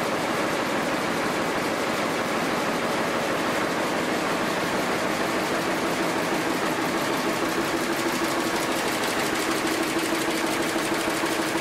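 Dornier industrial power loom running at speed: a fast, even mechanical clatter of rapid beats. A steady hum comes in about halfway through.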